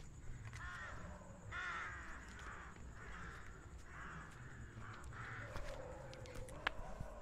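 Crows cawing, a run of harsh caws about once a second, with a sharp click near the end.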